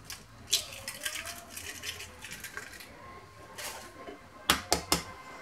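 Eggs being cracked into a plastic blender jug: quiet scattered taps and knocks of shell and hand on the jug, with three sharp taps in quick succession about four and a half seconds in.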